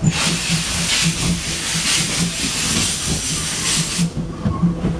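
Steam locomotive hissing loudly as steam is released, the hiss swelling a few times and cutting off suddenly about four seconds in, over a low rhythmic pulsing of about three to four beats a second from the running engine.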